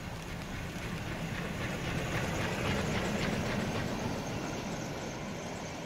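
Metre-gauge steam locomotive hauling a train of vintage coaches as it approaches. The train noise grows louder to a peak about halfway through, then eases slightly.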